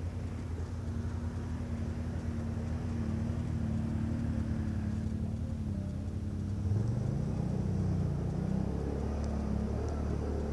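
ATV engine running steadily as the quad wades through a river, its note rising as it is throttled up about two-thirds of the way through, with water splashing around the wheels.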